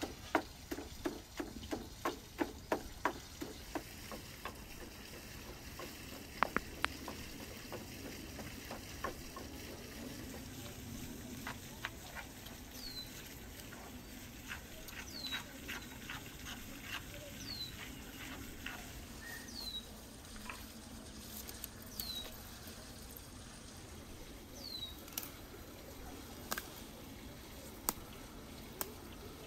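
Wooden pestle pounding garlic in a wooden mortar: rapid, even knocks, about three a second, that die away after the first few seconds. Then come scattered light taps and clicks of handling, with a bird's short falling chirps every couple of seconds in the middle stretch.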